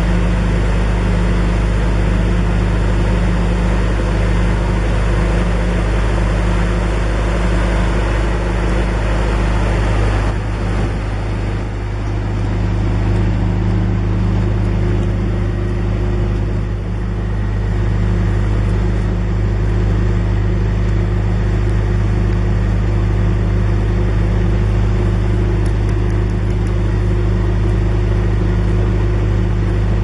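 John Deere 410G backhoe loader's four-cylinder diesel engine running steadily, with a low, even drone.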